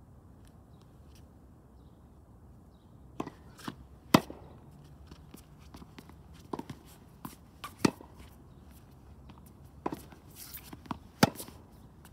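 Tennis balls being hit back and forth in a rally: sharp racket pops and lighter bounces, in groups about every three and a half seconds, the loudest hit of each group coming at the end. The first three seconds hold only a low hum.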